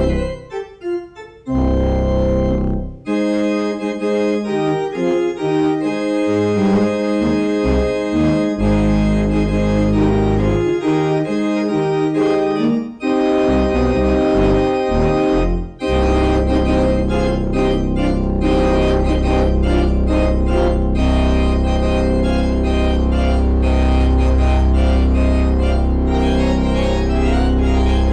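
Church organ playing the postlude at the close of a worship service. Held chords are broken by a few short pauses, and about sixteen seconds in the music turns fuller and continuous over a deep sustained bass.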